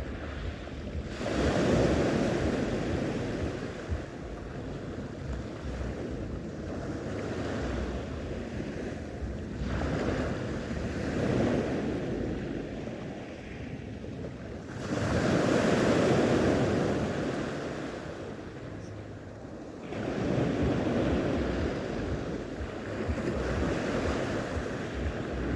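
Sea waves washing in, the surf swelling and fading every few seconds, with wind rumbling on the microphone.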